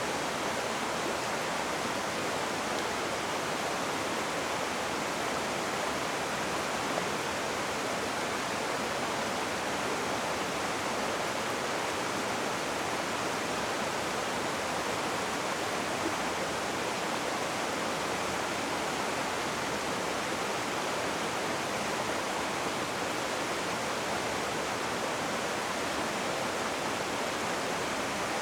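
Rushing river water, a steady even rush with no change in level.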